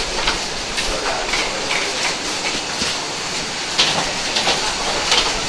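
Wheeled cabin suitcases rolling along a jet bridge floor with footsteps, a steady rolling rumble broken by irregular clicks and knocks.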